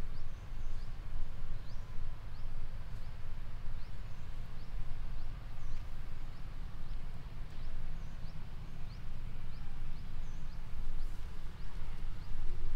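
Outdoor rural ambience: a steady low rumble with a short, high, rising chirp repeating about every three-quarters of a second.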